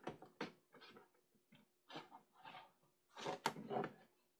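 Plastic VHS and DVD cases being handled and set down on a shelf: a few short soft knocks and scrapes, busiest about three seconds in.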